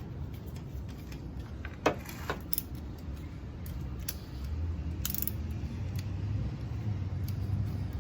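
Small metallic clicks and clinks of hand tools and parts being handled while working on a door lock actuator, one sharp click about two seconds in the loudest, over a low steady rumble.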